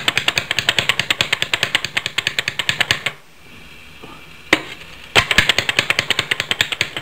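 KitchenAid mini food chopper chopping onion and garlic: a rapid, even clatter of about ten clicks a second for about three seconds, then a single click about four and a half seconds in, and a second run of the clatter for the last two seconds.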